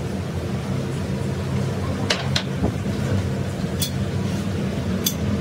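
Steady low mechanical hum of a machine running, with a few short, sharp clicks of the steel jack parts being handled about two, four and five seconds in.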